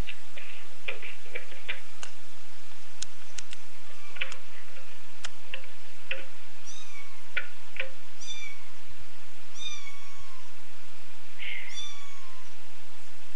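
A kitten meowing: about five short, high-pitched mews, each falling in pitch, starting about halfway through. Scattered sharp clicks and taps come before them.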